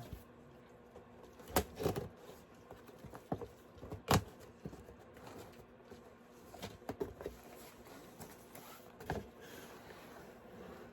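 A gift box being cut open with a knife and its packaging handled: scattered light clicks, taps and scrapes, the sharpest about four seconds in.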